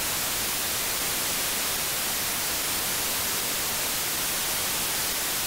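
Steady white-noise test signal from a Korg Kronos synthesizer, played through its Stereo Dynamic Compressor effect set fully wet, at an even level throughout. Switching the compressor on makes only a slight difference in the high end.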